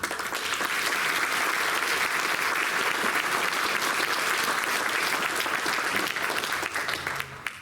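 Audience applauding in a council chamber: steady clapping that starts abruptly and dies away near the end.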